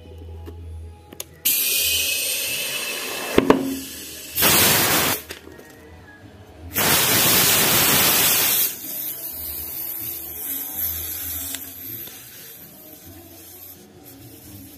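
Compressed air hissing from an air-line chuck in three bursts as a motorcycle tyre is pumped up through its valve, with one sharp click between the first two bursts.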